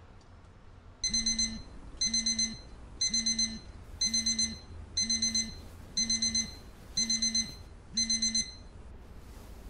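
Electronic alarm beeping in bursts of four quick beeps, about one burst a second, eight bursts in all, starting about a second in.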